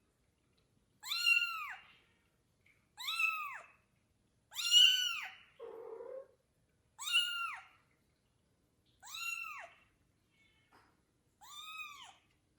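A kitten meowing: six high-pitched calls, each rising and falling in a short arch, about two seconds apart. A brief lower, rougher sound comes between the third and fourth calls.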